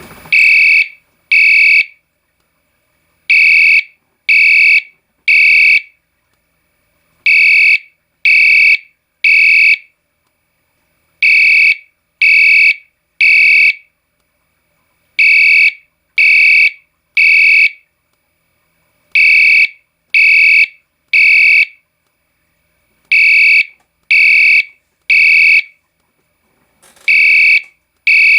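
Potter SH-1224 fire alarm horn sounding its electromechanical tone, very loud, in a temporal-three pattern: three pulses of under a second each, then a pause, repeating about every four seconds.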